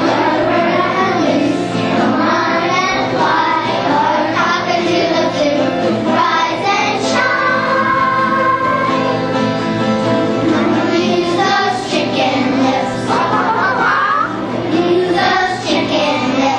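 A group of young children singing together over musical accompaniment.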